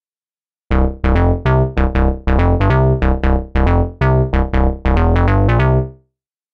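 GForce Oberheim SEM monophonic synthesizer plug-in playing its 'Fuel Shortage' patch: a fast sequence of short, plucky notes over a deep bass, about four notes a second. It starts just under a second in and stops at about six seconds.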